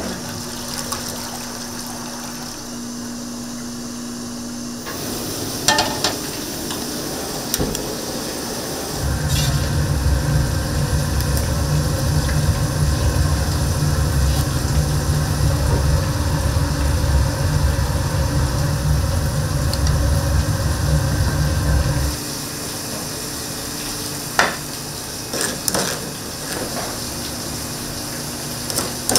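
Spicy webfoot octopus (jjukkumi) being stir-fried in bulk in a large pan: a steady sizzle with stirring and a few sharp clanks. A low steady rumble joins for much of the middle stretch.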